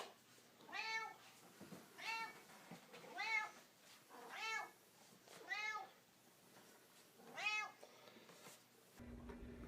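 A cat meowing six times, each call short and arching up then down in pitch, at roughly one-second intervals with a longer pause before the last. A steady low hum starts abruptly near the end.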